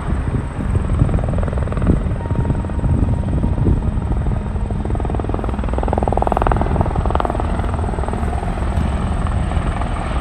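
Tour helicopter approaching to land, its rotor beating steadily and loudly over the engine.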